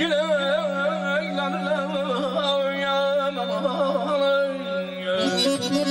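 Azerbaijani mugham singer (khanende), amplified through a PA, holding a long melismatic vocal phrase that warbles in rapid trills, over a steady held note from the accompaniment. About five seconds in, the instrumental accompaniment comes in fuller.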